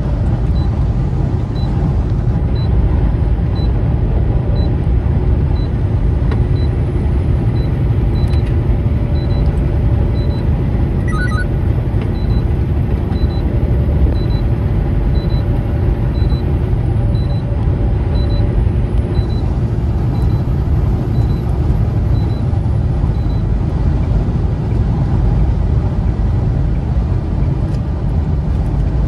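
Steady low rumble of engine and road noise inside a semi-truck's cab cruising along the highway.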